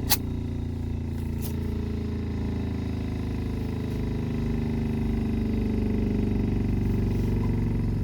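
Electric workshop grinding machine running steadily with a low motor hum while the knife's blade and edge are worked, with a sharp click just after the start.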